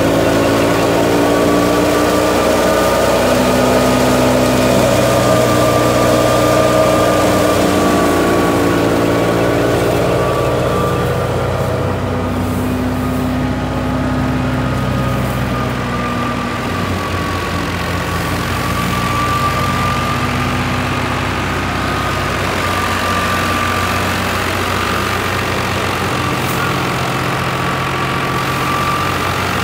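FIAT 480 tractor's diesel engine running steadily under load, driving a wheat thresher through its PTO, with the thresher's drum and belts humming along. The engine note wavers slightly as the load changes, and the whole sound eases a little after about ten seconds.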